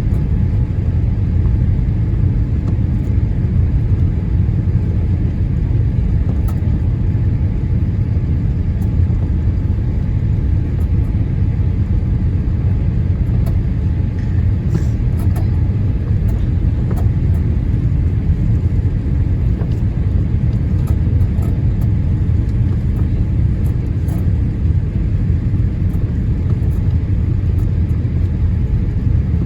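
Steady low cabin rumble inside a Boeing 787-8 Dreamliner rolling on the ground after landing.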